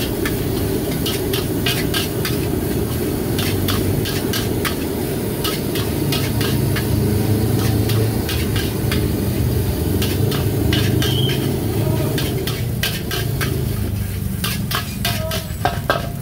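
Fried rice being stir-fried in a wok: a metal spatula scrapes and clanks against the wok again and again over a steady sizzle and a low rushing sound.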